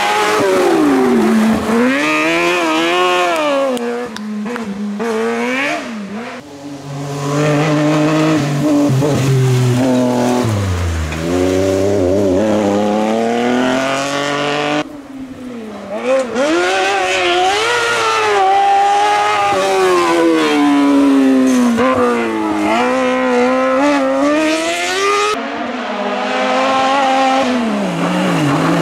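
Kartcross buggies driven hard through bends, one after another, their engines revving up and down as they brake, shift and accelerate. The sound breaks off abruptly a few times as one car gives way to the next.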